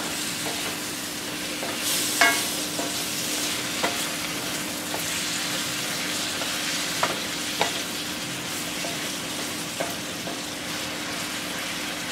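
Sliced yellow squash with onions and celery sizzling in a cast iron skillet as a wooden spoon stirs them, a steady hiss with a few sharp knocks of the spoon against the pan.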